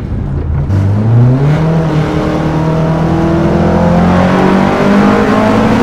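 BMW K1200RS four-cylinder motorbike engine in a Hillman Imp, heard from inside the cabin while the car accelerates. After a drop in revs at the start, the engine note climbs steeply about a second in and keeps rising more slowly, with another change of note about four seconds in.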